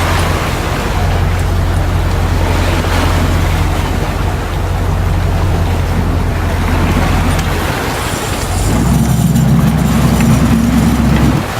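Fishing boat's engine running steadily under wind and water noise. About three-quarters of the way through its note steps up louder and higher as the throttle opens, then drops back abruptly near the end.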